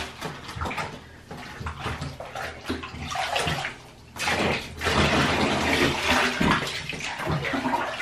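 Bathwater splashing as water is poured from a plastic cup over a puppy's back in a filled bathtub, louder from about halfway through.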